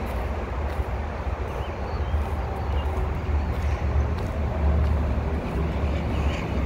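Low rumble that wavers unevenly in level, typical of wind buffeting the microphone outdoors, with a faint even hiss above it.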